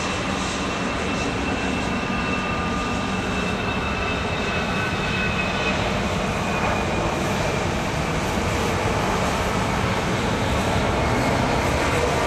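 Twin jet engines of a Finnair Embraer E-Jet running at low thrust as the airliner taxis, a steady rushing noise with a high fan whine that sinks slightly in pitch over the first half. The noise grows a little louder near the end.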